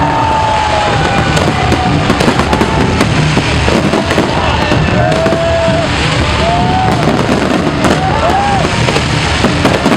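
Fireworks exploding and crackling without a break, a dense barrage of pops and bangs, with a few short curving tones over it.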